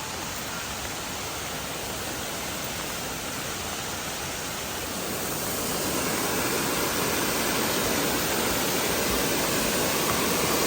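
Steady rushing of water, growing louder about halfway through.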